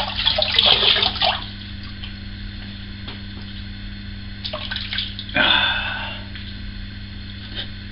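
Water splashing at a bathroom sink as shaving cream is rinsed off the face. There is splashing in the first second and a louder splash lasting about a second a little past the middle, over a steady low hum.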